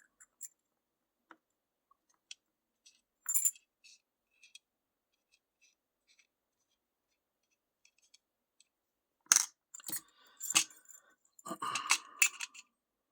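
Small metal lock parts clicking and clinking as they are handled and set down on a hard surface: a few faint ticks, a louder clink about three seconds in, then a busy run of louder clicks and clatter in the last few seconds.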